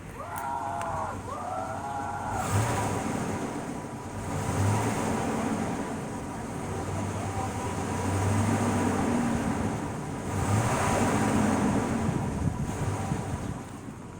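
2000 Chevy Tahoe Z71's V8 engine revved about four times, each rev swelling and falling back to idle, fairly quiet through its stock exhaust. A dog whines twice near the start.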